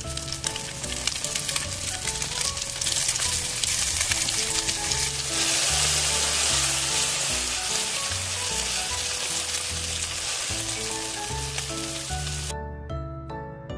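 Egg-battered cod pieces sizzling and crackling in hot oil in a cast-iron skillet. The sizzle is loudest about midway and cuts off suddenly near the end. Background music with a melody and bass plays underneath.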